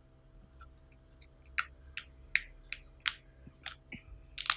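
Hands squeezing a small soft plastic cup of foam slime to press it out. Scattered sharp clicks and pops come first, then a louder burst of crackling pops near the end as the slime comes out.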